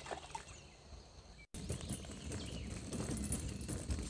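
Small wheeled cart pulled along a wooden boardwalk, its wheels clattering over the planks in a rapid, uneven clip-clop that starts abruptly about a second and a half in. Birds chirp faintly.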